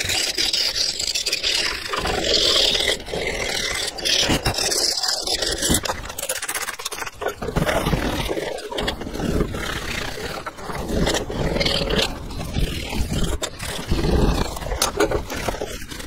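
Metal cutterhead of a planer thicknesser being cleaned at its knife slot. A pointed tool scrapes out the grime, then a cloth rubs over the steel, giving an irregular, scratchy scraping and rubbing in short strokes.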